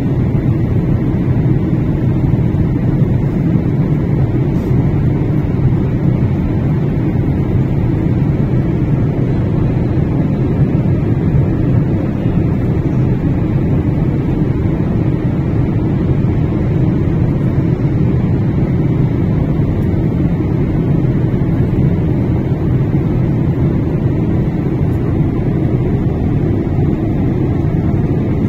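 Steady cabin noise of an airliner in flight: the constant low roar of engines and airflow through the fuselage, unchanging throughout.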